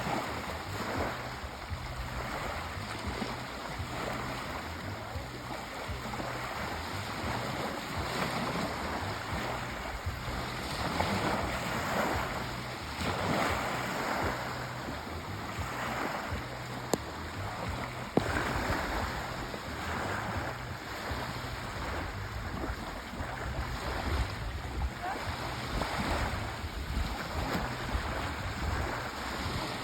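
Sea waves washing onto a shore, a steady surf with a fresh swell every second or two. A single sharp tick comes about two-thirds of the way through.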